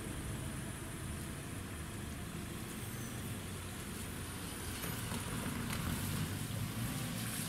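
A car driving across the level crossing on a wet road, its engine and tyres growing a little louder about five seconds in, over a steady low rumble of traffic.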